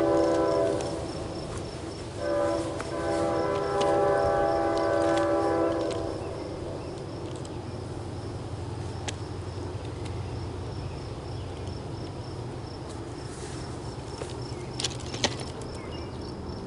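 Locomotive air horn of an approaching train that is not yet in sight, sounding a chord of several tones twice: the first blast ends about a second in, and the second runs from about 2 to 6 s. After it comes a low, steady rumble from the train, with a few sharp clicks near the end.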